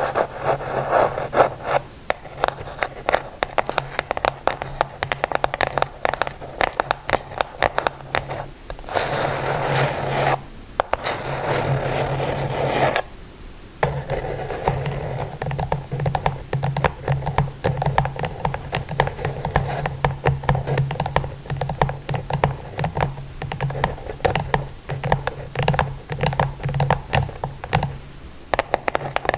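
ASMR tapping and scratching on a surface: rapid, dense taps throughout, with a stretch of continuous scratching about nine to thirteen seconds in. A steady low hum runs underneath.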